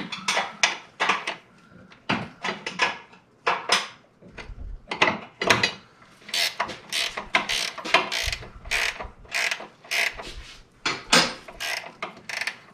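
Ratcheting wrench clicking in quick runs with short pauses as a bolt on a front sway bar mount is worked.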